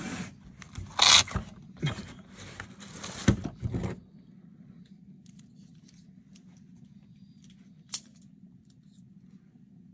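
A zipper and the rustling and scraping of a bag being handled, in loud bursts that stop abruptly about four seconds in. After that, a faint steady low hum, with a single sharp click near the end.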